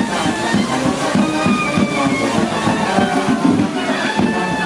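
Music with a steady beat and melody instruments, at a constant loudness.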